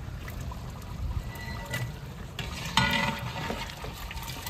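Metal ladle clinking and scraping against a large aluminium cooking pot as a steaming curry is stirred, with a louder clatter about three seconds in.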